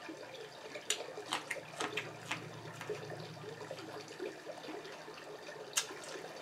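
Faint wet eating sounds: chewing and lip smacking, with a few short sharp clicks as sauce-covered seafood-boil food is picked up and handled with the fingers.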